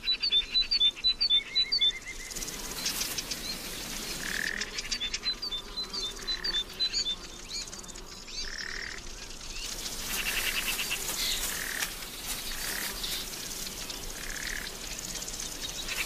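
Wild birds calling in a forest: a run of rapid, high chirps repeated several times a second at the start and again about five seconds in, with a softer call coming back every couple of seconds over a steady outdoor hiss.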